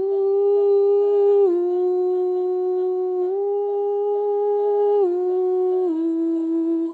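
A woman's voice holding five long wordless notes without a break, stepping down, back up, then down twice to the lowest note near the end, sung live into the iPad looper's recording.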